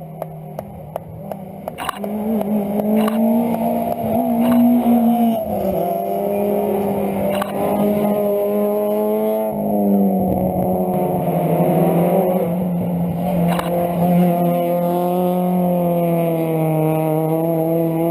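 Rally car's engine, heard from inside the car, running hard under load, with sudden pitch drops about a third and halfway in as it changes gear and then climbs again. A few sharp clicks are heard over it.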